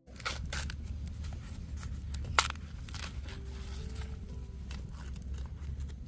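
Fresh sweet corn being husked by hand: green husk leaves torn and stripped off the ears in a series of short tearing rustles, with one sharp snap about two and a half seconds in.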